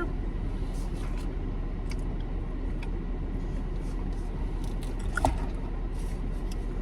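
Eating sounds from a double cheeseburger and fries: quiet chewing and small mouth clicks, with one brief louder smack about five seconds in, over a steady low rumble inside a car.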